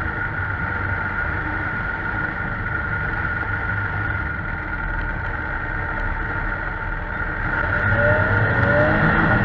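Vehicle engine running steadily with a constant low hum and a high whine, getting louder near the end with two short rising notes.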